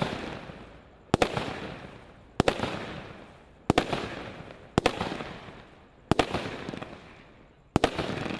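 Brothers Lion King 30-shot firework barrage cake (a battery of shot tubes) firing shot after shot: a sharp bang about every 1.2 seconds, each trailing off over about a second.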